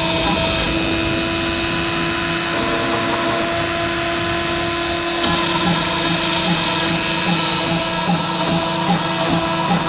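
Dremel rotary tool running steadily as the spindle of a desktop CNC machine, a high whine over a hiss. About five seconds in, a regular pulsing joins it, a little under twice a second.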